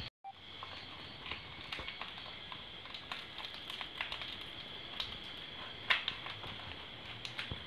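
Dong leaves and dried fibre string crinkling and clicking softly as a leaf-wrapped rice cake is tied by hand, with many small irregular clicks. A faint steady high-pitched hum runs underneath.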